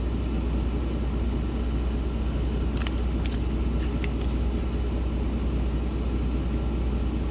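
Steady low rumble of an idling vehicle engine, with a few faint clicks about halfway through.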